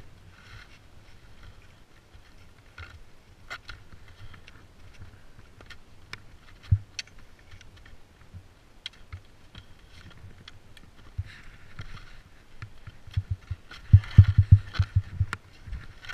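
Skis and ski pole scraping and clicking on hard-packed snow in scattered strokes, with a burst of dull thumps a couple of seconds before the end.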